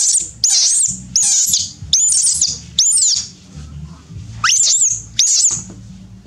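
Baby macaque crying: a series of short, shrill, rising squeals, about two a second, with a pause around three seconds in before two more. It is the distress cry of an infant monkey wanting milk.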